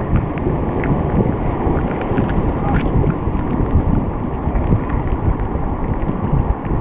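Ocean surf churning over shoreline rocks and foaming water close by, a steady rushing with small scattered splashes, with wind buffeting the microphone.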